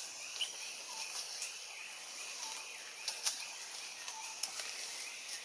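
Outdoor woodland ambience: a steady high hiss with scattered short chirps and a few sharp clicks, two of them close together a little past the middle.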